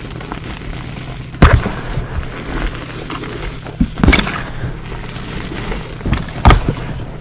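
Hands crushing and squeezing lumps of plain gym chalk in a bowl of chalk powder: a steady crumbling crunch, broken by three loud thuds about two and a half seconds apart, the first about a second and a half in.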